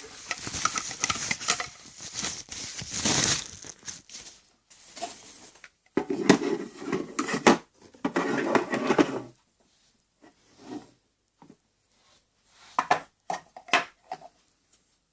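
Packaging being handled while a solar charger is unboxed: rustling and crinkling, a louder stretch of it in the middle, then a few scattered clicks and knocks.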